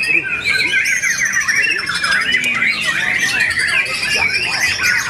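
White-rumped shamas singing without pause, several at once, their rapid, varied phrases of quick rising and falling notes overlapping into a dense chorus.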